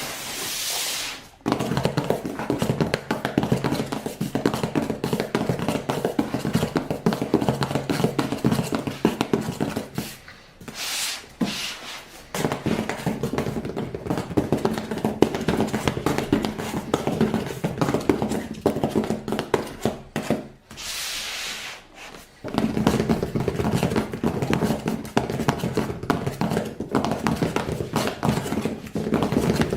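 Hands unpacking a Lego set: irregular tapping, clicking and rustling of the box, bags and plastic pieces, with a few brief hissing rustles.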